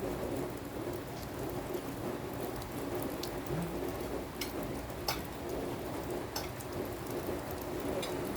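Steady rain falling, an even hiss of drops with a few scattered sharper drip ticks.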